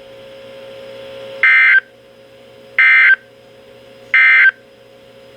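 Three short, identical bursts of warbling digital data tones, about 1.4 seconds apart, over the steady hiss and hum of a weather radio receiver: the EAS/SAME end-of-message code sent by NOAA Weather Radio to mark the end of the alert.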